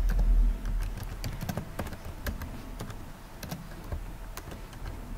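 Typing on a computer keyboard: irregular, rapid key clicks as a line of text is typed, with a low rumble in the first half-second.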